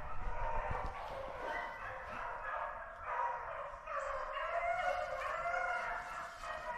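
A pack of rabbit hounds baying, several dogs' voices overlapping in a continuous chorus of long, wavering cries.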